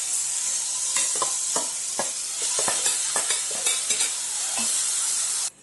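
Onion, tomato and green chilli sizzling in oil in a kadai, with scattered clicks and scrapes of a spoon as mashed potato is scraped from a steel bowl into the pan. The sound drops out briefly near the end.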